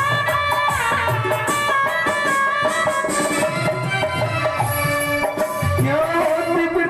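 Instrumental interlude of a Hindi devotional bhajan: a sustained melody over a steady hand-drum beat in a folk style.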